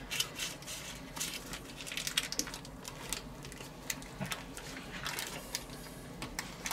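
Baking paper crinkling and rustling in gloved hands as a bacon-wrapped minced-meat roll is rolled up on a wooden board, with soft squishes from the meat; scattered small crackles, no steady sound.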